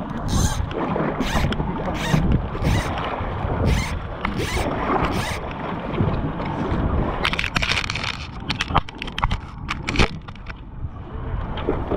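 Fly line being stripped in by hand, each pull a short zipping rasp, about eight pulls in the first five seconds. A quicker flurry of rasps follows, then a single knock about ten seconds in.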